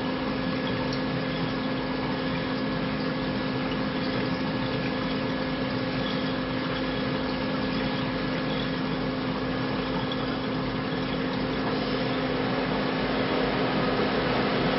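Aquarium pump running: a steady electric hum with a low tone and a fainter higher whine over an even hiss.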